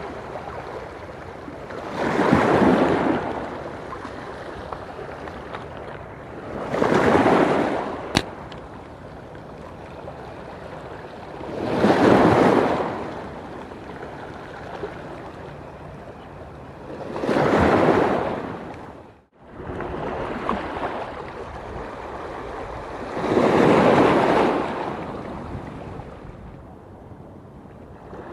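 Small sea waves washing onto a rocky shore, a surge of wash about every five seconds over a steady hiss, with one sharp click about eight seconds in.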